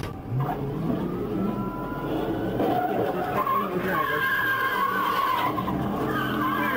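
Car engines running hard and tyres squealing as a patrol car and a pickup truck speed past, the pickup spinning its wheels as it slides through dirt. A wavering squeal grows from about three and a half seconds in.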